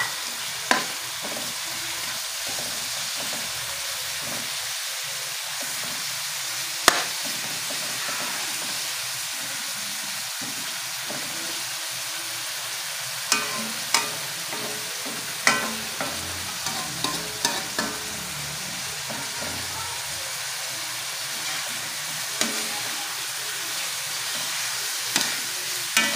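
Beef strips frying in a wok with butter, onion and garlic: a steady sizzling hiss. A metal spatula scrapes and knocks against the wok as the meat is stirred, with one sharp knock about seven seconds in and a run of them in the middle and near the end.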